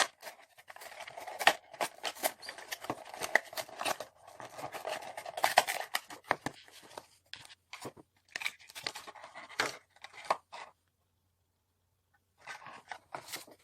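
Retail packaging of a light remote being opened by hand: tearing, rustling and sharp clicks of cardboard and plastic, with a pause of about a second and a half near the end.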